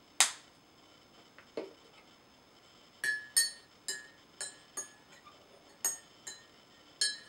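A spoon stirring sweetener into a cup of tea, clinking against the sides about twice a second from three seconds in. Before that comes one sharp clink just after the start and a duller knock.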